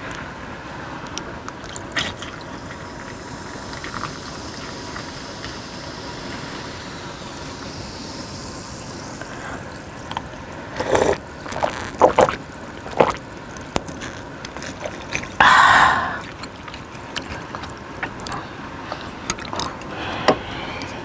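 A person eating soup: scattered spoon clicks and short, loud eating noises, a cluster in the middle and the longest, loudest about fifteen seconds in, over a steady background hiss.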